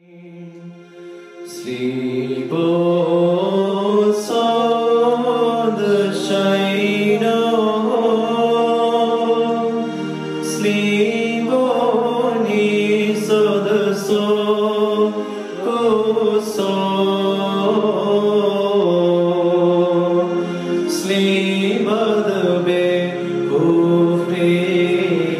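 A solo voice singing a slow Syriac Orthodox hymn over sustained keyboard chords. It starts softly and swells to full level after about two seconds.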